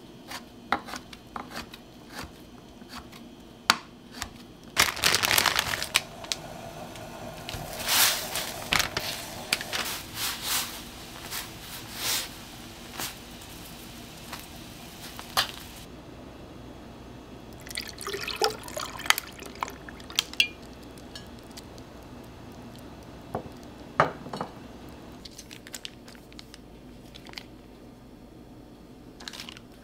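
Kitchen cooking sounds. A knife clicks against a wooden cutting board in the first few seconds. Then come stretches of splashing water broken by knocks and clinks of a pot and utensils.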